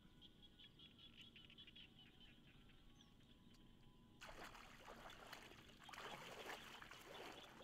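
Faint splashing and sloshing of hands working a fish net in shallow floodwater, starting suddenly about four seconds in; before that only light scattered ticks.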